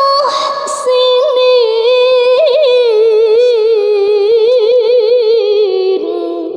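A woman's voice chanting Quran recitation in melodic tajwid style: a short hissing consonant, then one long held note with rippling ornaments that slowly falls in pitch and begins to fade near the end.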